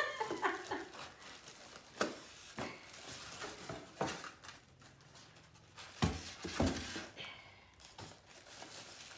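Unpacking noises: polystyrene packing being pulled off a plastic-bagged appliance, with plastic crinkling and scattered knocks. Two dull thumps about six seconds in are the loudest sounds.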